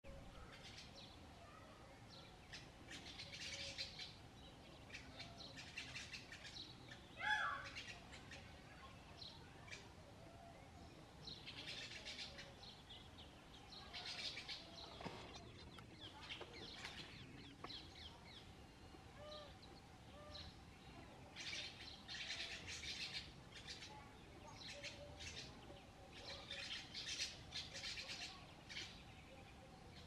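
A small flock of seed-eating birds chirping in repeated bouts of quick, high twittering, with one louder, lower call about seven seconds in.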